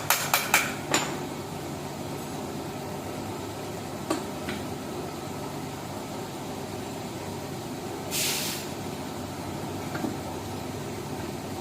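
Workshop sounds: a quick run of sharp knocks at the start over a steady low hum, a single knock about four seconds in, and a short hiss about eight seconds in.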